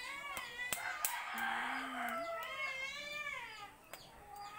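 A rooster crowing, with long calls that rise and fall in pitch, the longest about halfway through; a few sharp clicks sound alongside.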